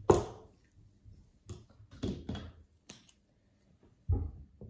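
Whiteboard eraser wiping across a whiteboard in several short scrubbing strokes, the first the loudest, then a sharp click and a dull knock near the end.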